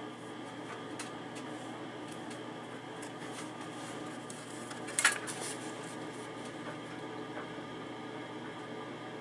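Steady low hum with a few light clicks of handling, and one sharp clack about five seconds in.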